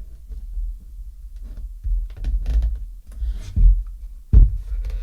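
Handling noise of small accessories being picked up and set down: light knocks and clicks over a low rumble, a brief rustle a little past three seconds, and a louder thump about four and a half seconds in.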